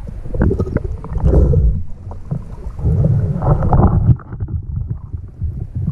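Muffled water sloshing and splashing around a camera in a waterproof housing as a spearfisher moves through shallow water, with small knocks and two louder surges.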